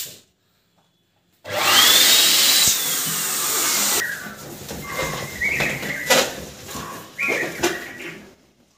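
Electric balloon inflator starting about a second and a half in, its motor and air rush running loudly for a couple of seconds with a whine that rises and then falls as a balloon fills. After it stops, latex balloons squeak and rub as they are handled.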